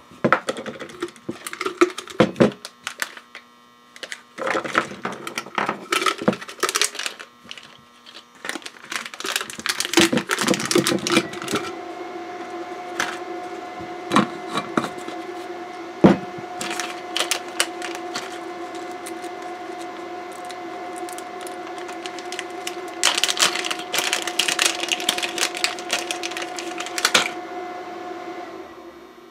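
Small parts being handled: a glass jar's lid unscrewed, parts clicking and rattling in the glass jar, and a plastic parts bag crinkling, in a string of sharp clicks and rustles. From about twelve seconds in, a steady hum sounds underneath and stops just before the end.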